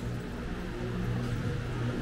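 City street ambience dominated by a motor vehicle's engine running steadily as a low hum.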